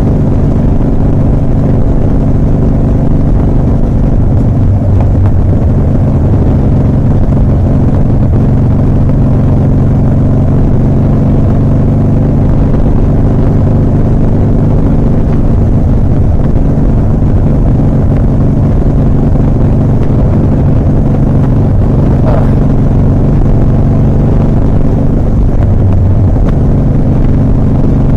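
A 2007 Harley-Davidson Softail Custom's V-twin engine running steadily under way. Its low note shifts a little about five seconds in and again near the end.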